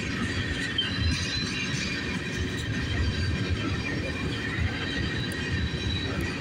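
Freight train of tank cars rolling past: a steady low rumble of steel wheels on the rails, with a thin, high wheel squeal over it.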